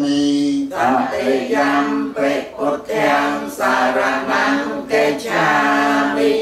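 A congregation of lay Buddhists chanting Pali together in unison, unaccompanied, in long melodic phrases with held notes and short pauses for breath.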